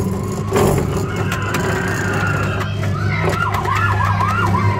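Fire truck kiddie ride's electronic siren sound effect through its speaker: a quick up-and-down wail repeating several times in the second half, over a steady low hum and play-centre background noise.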